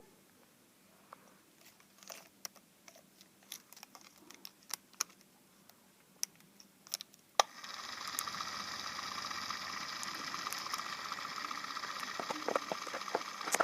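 Small battery-powered motor of a homemade mini ceiling fan, salvaged from a spinning-top toy, switched on with a click about halfway through and then running with a steady whine. Before that there are only faint scattered clicks.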